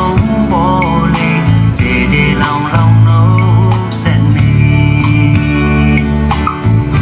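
A song with a singing voice and guitar played over Bluetooth through a Ceflar M1110 soundbar and subwoofer, with strong bass.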